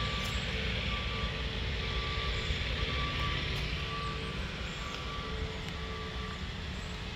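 Outdoor background noise, a steady low rumble and hiss, with a faint beep near the middle of the range that comes and goes intermittently.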